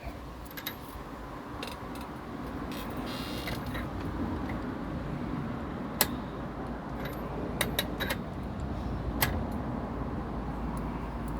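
Scattered sharp metallic clicks and clinks of hand tools and parts while a nut is fitted and tightened on the scooter's clutch assembly, over a steady low background rumble.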